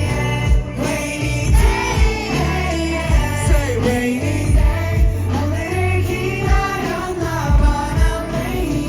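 Live music at a festival stage: a sung melody over a steady kick-drum beat and bass.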